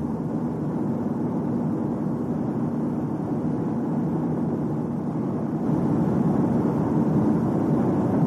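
Steady rumbling noise of a moving vehicle, growing louder about two-thirds of the way in.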